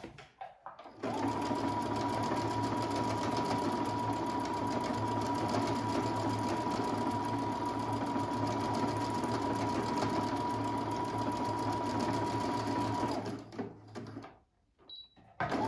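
Brother Innov-is 200 computerized sewing machine running at a steady speed, stitching out a decorative stitch pattern, with a constant motor whine. It starts about a second in and stops about two seconds before the end. A short high beep follows, and the machine starts sewing again right at the end.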